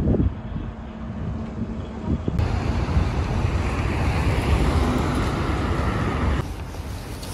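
Wind buffeting the microphone, a steady low rumble. About two seconds in it turns louder and hissier, and it drops back again about six seconds in.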